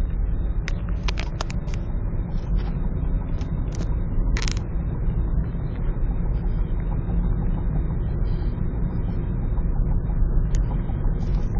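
Road and engine noise inside a moving car, a steady low rumble, with a few light clicks and a brief hiss about four seconds in.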